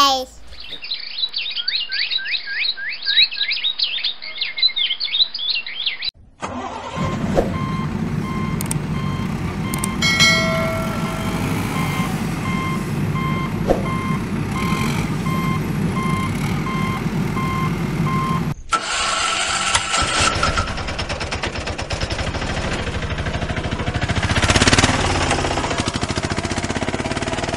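Dubbed-in truck sound effects: a few seconds of rapid high chirping, then a truck engine running under a reversing alarm that beeps steadily, which gives way about two-thirds through to a different, rougher engine sound.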